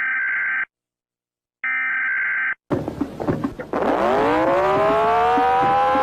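Emergency Alert System header data bursts: harsh, buzzy digital tones about a second long with a second of silence between, the last ending about two and a half seconds in. Then a clatter of knocks and a low droning tone with overtones that glides up in pitch and levels off.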